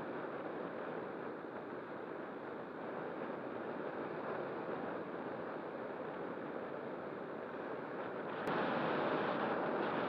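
Steady rush of airflow over an RC glider's onboard camera in gliding flight. A click about eight and a half seconds in is followed by a louder rush.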